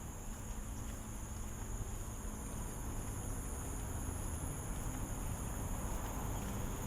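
Steady, high-pitched chirring of insects over a low background rumble that grows slightly louder near the end.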